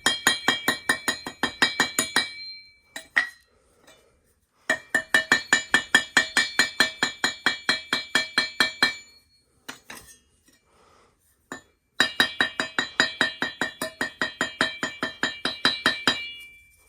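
Gas boiler burners being tapped out to knock debris from inside them: three runs of quick ringing metallic taps, about five or six a second, with short pauses between the runs.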